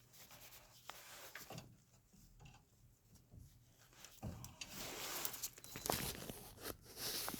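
Faint handling noise of suspension parts being fitted by hand: a few light clicks, then irregular rustling and scraping from about four seconds in.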